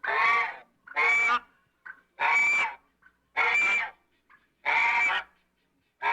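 An animal calling over and over: five long, loud calls about a second apart, with a sixth beginning at the end.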